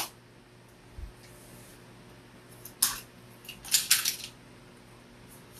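Hand pop-rivet tool being picked up and handled, making metallic clicks: a soft low thump about a second in, a single sharp click near three seconds, then a quick run of clicks and clatter around four seconds.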